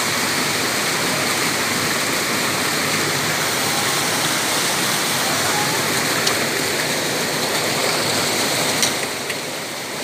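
Mountain stream rushing steadily as it cascades over boulders, an even, unbroken sound of falling water that eases slightly near the end.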